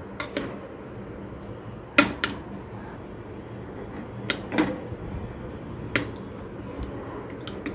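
A spoon clinking against a glass bowl every second or two while fish pieces are stirred into thick yogurt, a few sharp knocks with soft stirring between them, over a faint low hum.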